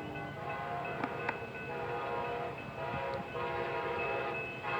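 Horn of an approaching Siemens Charger passenger locomotive sounding a steady multi-note chord for the grade crossing, with a short break a little over three seconds in.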